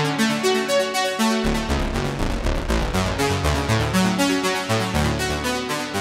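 Wavesequencer Theia software synthesizer playing its "EchoSequence" preset: a rapid sequenced pattern of repeating synth notes. A deep bass line comes in about a second and a half in.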